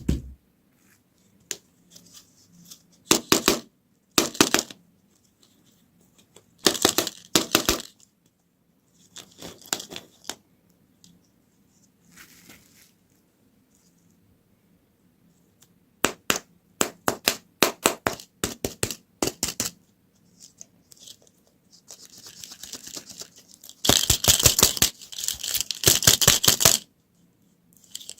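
Plastic candy and toy packaging being handled and torn open, in repeated bursts of crinkling, tearing and sharp clicks with short pauses between, busiest and loudest near the end.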